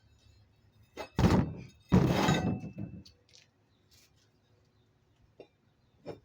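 Two heavy thuds about a second apart as the just-separated lawn tractor tire and its steel rim are dropped, the second with a short metallic ring, followed by a couple of faint knocks.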